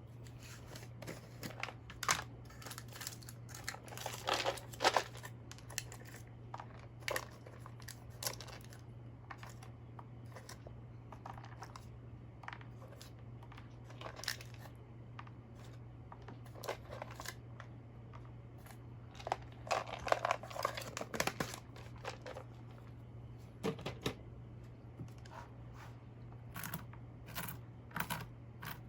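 Irregular crinkling, rustling and tearing sounds of bread and its wrapping being handled during food preparation, in clusters, busiest about four seconds in and again around twenty seconds in, over a steady low hum.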